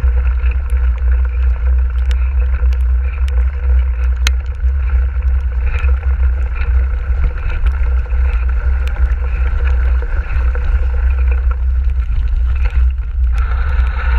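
Wind buffeting the microphone of a mountain bike rider's action camera, a heavy constant rumble, as the bike rolls over a wet, muddy trail. Scattered sharp clicks and rattles come from the bike over the rough ground.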